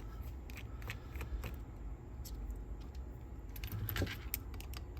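Small screwdriver working screws out of a cassette deck's metal motor board: scattered light metallic clicks and scrapes, bunched together about four seconds in.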